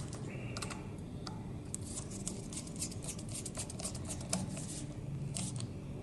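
Small, irregular clicks and scrapes of a screwdriver tightening the screws of a fan's terminal block, densest about two to four seconds in.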